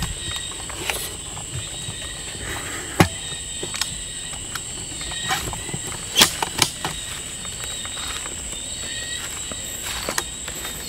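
Footsteps through dry leaves and undergrowth, with a few sharp snaps and cracks, loudest about three seconds and six seconds in, over a steady high-pitched drone of night insects.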